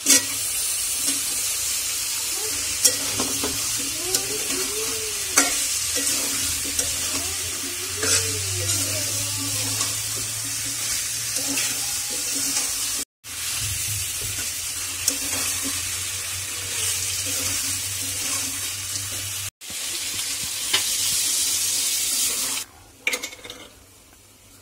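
Pigeon meat and potato pieces sizzling in a hot metal wok, with a spatula scraping and knocking against the pan as they are stirred. Near the end the sizzling falls much quieter.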